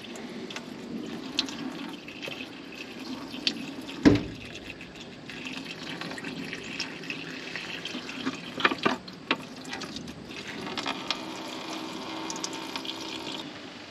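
Fuel draining from a backhoe's fuel tank in a steady pouring stream. A few sharp knocks sound over it, the loudest about four seconds in and several more around nine seconds.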